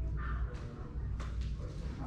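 Quiet classroom room tone: a steady low hum, with a short faint higher-pitched sound near the start and a single sharp click a little after a second in.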